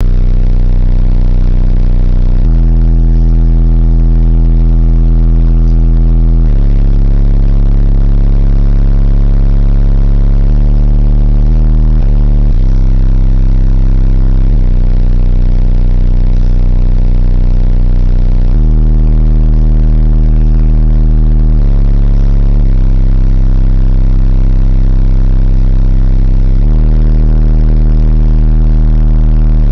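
Two Sundown E8 8-inch car subwoofers on a Hifonics Zeus 1000.1 amplifier, playing heavy bass music very loud. Long deep bass notes are held for a few seconds each and jump to a new pitch between them.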